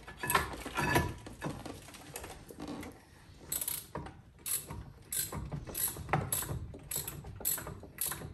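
Hand ratchet wrench backing out a rear brake caliper bolt by hand, a few metal clunks at first, then steady clicking strokes about twice a second through the second half.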